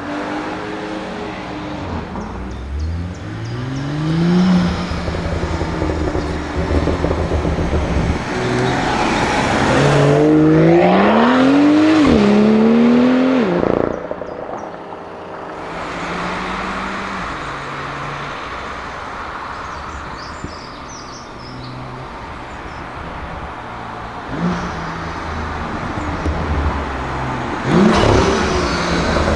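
BMW M2 F87's turbocharged straight-six through an Armytrix aftermarket exhaust, accelerating hard: the engine note climbs in pitch, drops at each upshift and climbs again, then cuts off sharply about halfway into a steadier, quieter run, with another short pull near the end.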